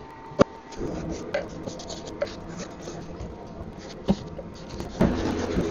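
Paintbrush strokes of chalk paint across a wooden cabinet door, a steady scratchy brushing. There are sharp knocks about half a second in and again around four and five seconds in.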